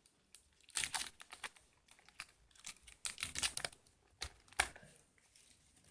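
Takeout food packaging being opened by hand: irregular crinkling, tearing and clicking of paper and cardboard, with the sharpest crackle near the end.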